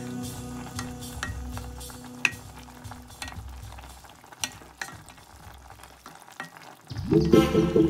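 Wooden spoon stirring fish soup in a pot, with scattered light clicks and knocks against the pot. Background music fades out over the first few seconds and comes back in loudly near the end.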